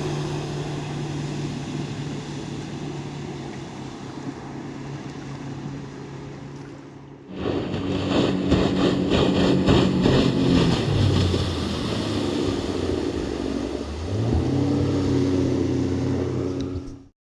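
Boat outboard motor running on the water, fading away over the first seven seconds. After a cut it is heard louder with wind and water noise; its pitch drops as it throttles down about eleven seconds in and rises again at about fourteen seconds, until the sound cuts off.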